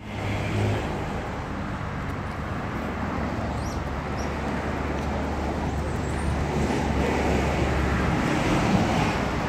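Steady road traffic noise, with a low engine hum that stops about eight seconds in.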